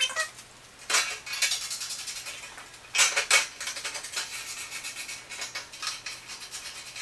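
Sharp metallic clicks and rattles of small metal fasteners and a sheet-metal cover panel being handled and fitted on a welder's cabinet, with the strongest clinks about one second in and around three seconds in.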